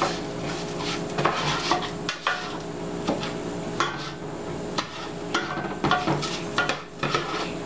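Plastic slotted spoon stirring and scraping oil-coated raw rice around a nonstick pot, with irregular scrapes and clicks as the grains are turned, over a steady hum.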